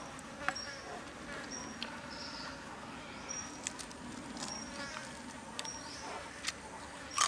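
Soft clicks and crunches of grilled chicken being pulled apart by hand and chewed, with a sharper crack near the end. A short high chirp repeats every second or so behind it.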